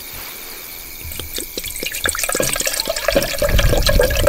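Running water with splashing and dripping clicks, growing louder, and a steady tone that comes in about two seconds in.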